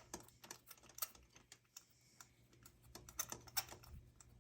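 Faint, irregular light clicks and taps of a spark plug socket and extension as a new spark plug is turned in by hand.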